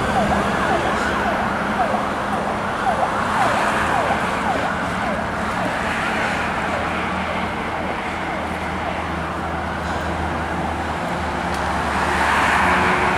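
Fire trucks' electronic sirens yelping in quick, repeated falling sweeps, fading over the first few seconds as the trucks pull away, over steady road traffic noise.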